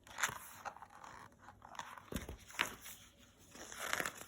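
Pages of a picture book being handled and turned: irregular papery rustles and scrapes, with a soft thump about two seconds in.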